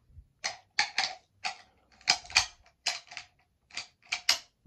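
Inert .303 British rounds being pushed one by one into a steel charger clip: a series of about a dozen sharp metallic clicks, some in quick pairs.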